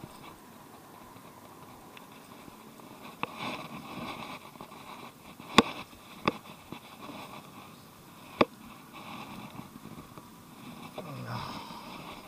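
A hooked largemouth bass thrashing and splashing at the surface close to the bank, in short bursts of splashy noise. Four sharp clicks cut through it, the loudest about halfway.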